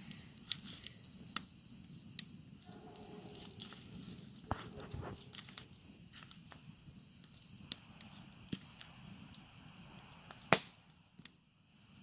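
Wood campfire crackling in a steel fire ring: scattered sharp pops and snaps, with one loud pop near the end.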